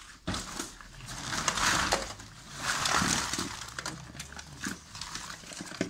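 Live crabs being stirred and picked through in a stainless-steel sink, their hard shells clattering and scraping against each other and the metal, with scattered clicks. The scraping swells loudest twice, about a second and a half in and again about three seconds in.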